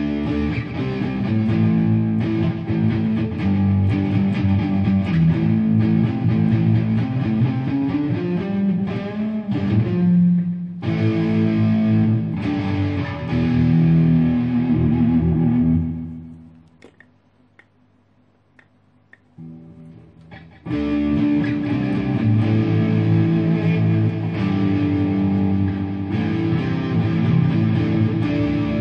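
Electric guitar on a distortion channel played through a Me all sound MP80D digital delay pedal set to a 200 ms modulated delay, with improvised phrases repeating behind the notes. The playing stops about sixteen seconds in and dies away, and starts again about four seconds later.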